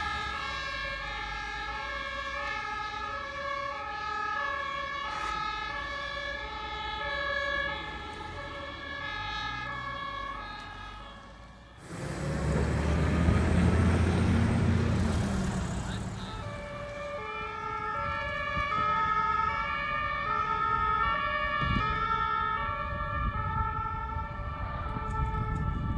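German two-tone emergency sirens (Martinshorn) of fire brigade vehicles turning out, alternating steadily between two pitches. About twelve seconds in, a vehicle passes close by with a loud rush of engine and tyre noise for a few seconds, then the sirens carry on.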